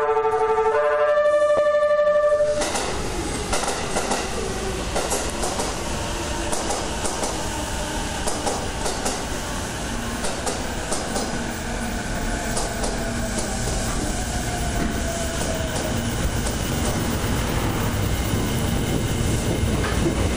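JR East E491 'East i-E' electric inspection train rolling slowly into the platform, wheels clicking over rail joints, with a motor whine that falls in pitch as it slows; its running sound resembles an E653-series train. It opens with a loud electronic signal of several notes, which stops about two and a half seconds in.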